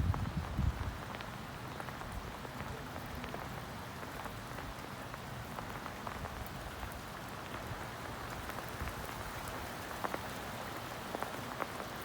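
Heavy rain falling steadily during a thunderstorm, with scattered drops ticking. The tail of a low thunder rumble dies away in the first second.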